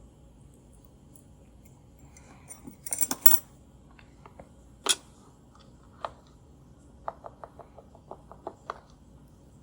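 Small metal lock parts clicking and clinking as a padlock core is taken apart by hand: a short clatter about three seconds in, a couple of single clicks, then a string of light ticks near the end.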